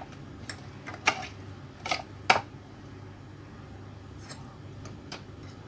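Raw peeled shrimp dropped into a plastic food processor bowl onto ice cubes: a handful of sharp clicks and taps against the bowl, the loudest about two seconds in. The processor's motor is not running yet.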